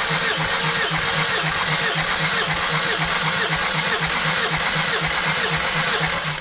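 Starter motor cranking a Hyundai 2.2 L D4HB diesel engine without it firing, with a fast, even beat from the compression strokes, for a compression test of the fourth cylinder. The cranking stops at the very end.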